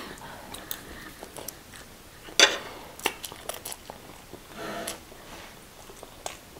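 Quiet eating sounds: chewing of instant noodles with scattered sharp clicks of a metal fork against a plate, the loudest about two and a half seconds in.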